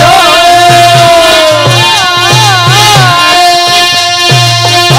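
Rajasthani folk devotional music: a held, wavering harmonium melody over a steady beat of hand drums, deru and dholak.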